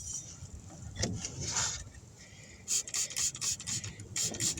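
Rubbing and rasping on a tire being worked on a tire changer: a scuff about a second in, then a run of quick, even rasping strokes, about three a second.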